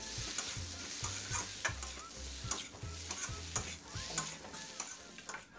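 Metal ladle scraping and clinking against a metal wok as chopped omelette and holy basil are stir-fried, with food sizzling underneath. The clinks come quickly and unevenly, several a second, over a steady sizzle.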